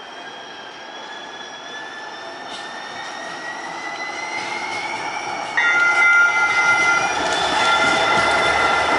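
Siemens S70 tram of the Atlanta Streetcar approaching and passing: a slowly rising electric whine as it speeds up, then about five and a half seconds in a sudden, louder high-pitched squeal from its wheels on the curved track.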